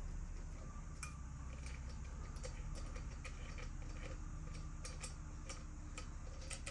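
Light, irregular clicks and taps of hand-tool work on a BMX bike's stem, over a low steady hum.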